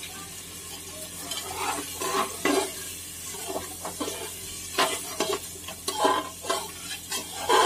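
A metal spoon stirring and scraping inside an aluminium pressure cooker, in repeated irregular strokes. Underneath, a masala of spices sizzles in mustard oil as water is added to it.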